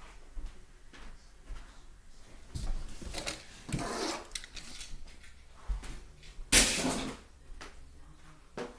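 Rustling and light knocks as a person reaches in and picks up diecast toy cars at a race track's finish gate, with a louder burst of rustling about two-thirds of the way through.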